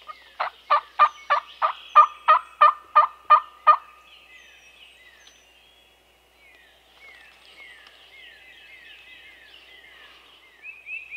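Wild turkey calling: a loud run of about eleven evenly spaced notes, about three a second, for roughly three seconds. After it come fainter repeated high, downward-sliding songbird chirps.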